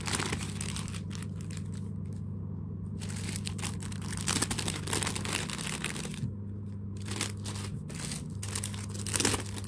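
Clear plastic packaging crinkling in short bursts as packets of embroidered rose appliqués are handled, quiet for a moment about two seconds in and again about six seconds in. A steady low hum runs underneath.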